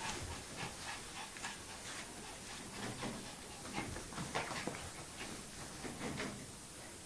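Small dog scrabbling about on a duvet: rustling of the quilt and irregular light taps and scratches as it moves over the bedding and the bed's edge.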